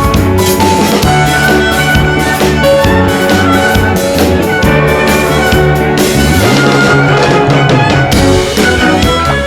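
Band music with a steady drum-kit beat, a bass line and melodic instruments, loud throughout.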